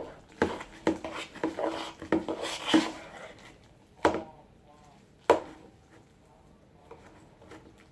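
A utensil scraping and clacking against a bowl as slime is stirred, with two sharp knocks about four and five seconds in.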